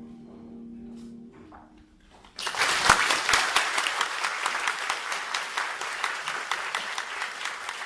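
The last held chord of a solo piano piece fades away, and after a short hush an audience starts applauding about two and a half seconds in, the clapping continuing steadily.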